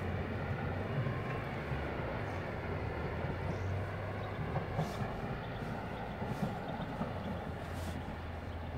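Electric multiple unit pulling away from the platform and receding: a steady low hum and rumble of the moving train, with three faint short hisses in the second half.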